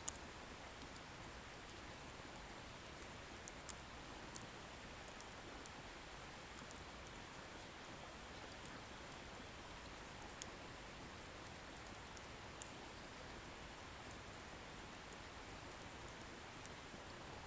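Wood bonfire burning with a steady soft hiss and sparse sharp crackles of firewood popping, about eight over the stretch, irregularly spaced.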